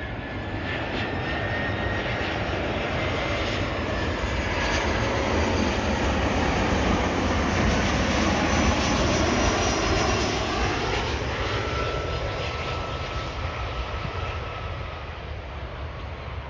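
Airbus A320-family twin-jet airliner on final approach with gear down, its engines' jet noise and whine swelling as it passes close by. The whine drops in pitch as it goes past, and the noise eases off as it flares to land.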